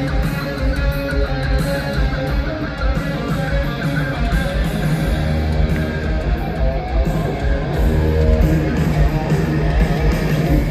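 Live rock band playing loudly in a stadium, led by electric guitar over bass, as heard from the stands.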